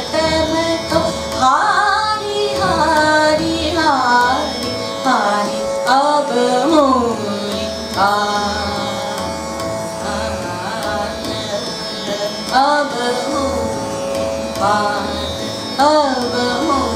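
A woman singing Hindustani classical vocal phrases in a Sarang-family raga, with repeated glides up and down between notes. A steady tanpura drone from an electronic drone box runs underneath.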